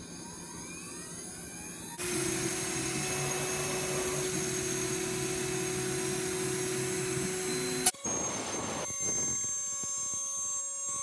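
Laguna IQ CNC router's spindle whining up in pitch, then its bit cutting into plywood with a loud, steady, high whir and hiss. About eight seconds in the sound drops to a quieter whir as the cutting carries on.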